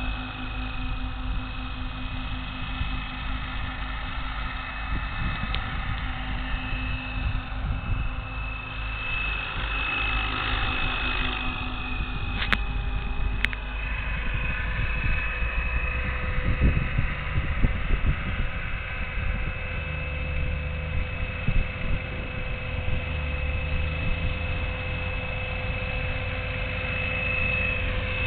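Electric RC scale helicopter (Agusta Koala, 800 mm blades, Scorpion brushless motor on 12S) in flight: a steady high-pitched motor whine over the rotor's thrum, with wind buffeting the microphone. Two short clicks about halfway through.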